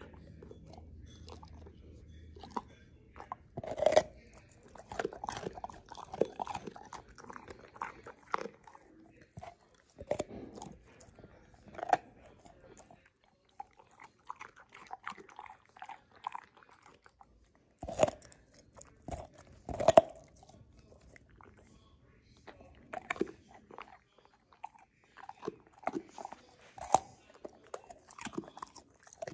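Dog gnawing on a chunk of carrot, crunching and chewing in irregular bites. The loudest crunches come a few seconds in and twice, about two seconds apart, around two-thirds through.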